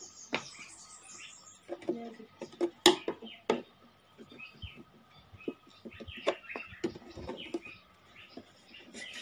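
Screwdriver clicking and scraping on a screw in an amplifier cabinet, with knocks from handling the cabinet, the loudest about three seconds in. Short high chirps sound now and then between the knocks.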